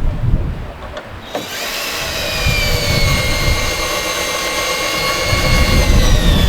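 A power tool's motor whining steadily, starting about a second and a half in, its pitch sagging slightly under load and falling near the end as it winds down. Wind buffets the microphone throughout.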